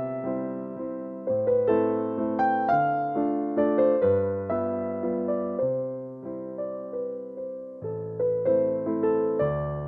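Background music on an electric piano: a melody of struck notes that fade, over low bass notes changing about once a second.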